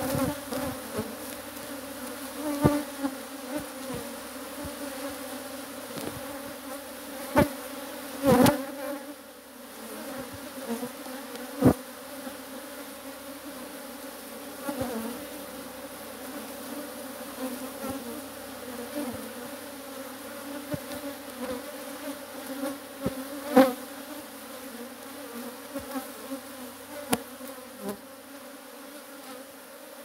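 Steady buzzing of a strong honeybee colony, many bees flying and crawling around the open hive. A few sharp taps or knocks cut through the hum, the loudest about a third of the way in and again past the middle.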